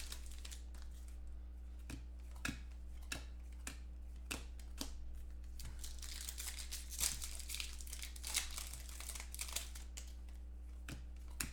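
Foil wrappers of 2014 Panini Contenders football card packs being torn open and crinkled by hand, in scattered short crackles and rips, over a steady low hum.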